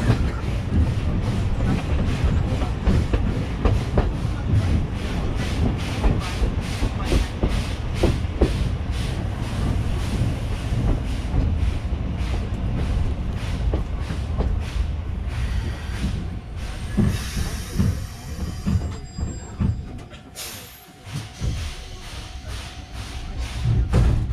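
A passenger train running along the track, heard through an open coach window: a steady rumble with a repeating clatter of wheels over the rail joints. Near the end the clatter thins out and a faint steady squeal comes in.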